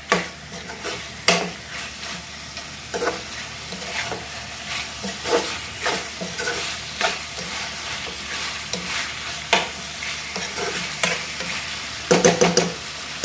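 Chicken curry sizzling in a kadai while a spoon stirs it, with irregular scrapes and knocks against the pan. A quick run of knocks comes near the end.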